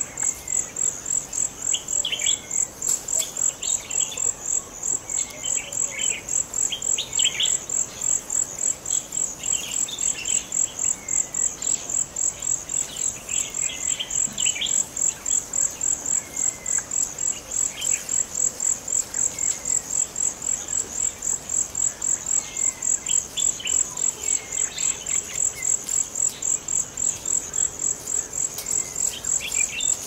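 High-pitched insect chorus pulsing steadily, about three to four pulses a second, with short bird chirps and falling whistles scattered over it: West African forest ambience from The Gambia.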